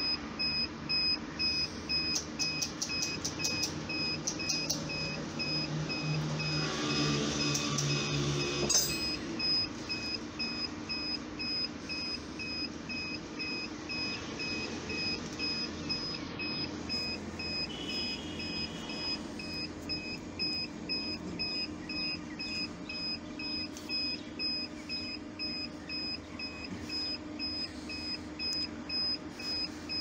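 High-pitched electronic beeper sounding rapid, evenly spaced beeps throughout, in the way an equipment alarm buzzer does. About six to nine seconds in, a louder low hum rises over it and ends in a sharp click.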